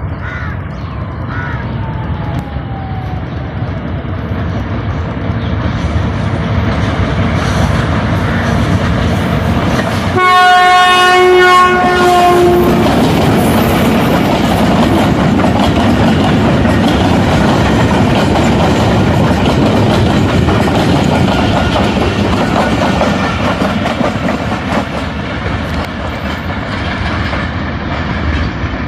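A 2000 hp Hitachi PHA-20 diesel-electric locomotive hauling a short freight train approaches and passes, its running growing louder. About ten seconds in, it sounds one horn blast lasting about two and a half seconds, then the loaded wagons rumble past on the rails.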